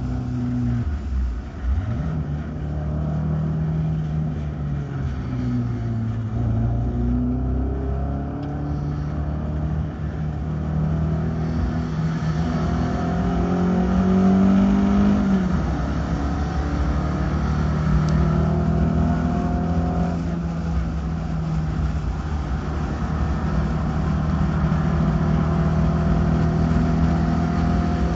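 Xcar race car's engine heard onboard while racing. The pitch falls and climbs several times as it lifts and accelerates, reaches its highest about halfway through, drops suddenly, then holds a steady note.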